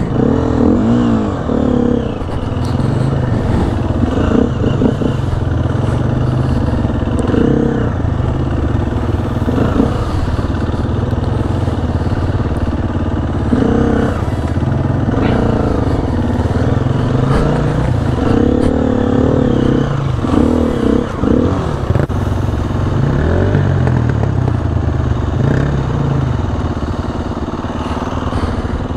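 Dirt bike's single-cylinder four-stroke engine running under varying throttle, its pitch rising and falling again and again as it is ridden along a muddy trail.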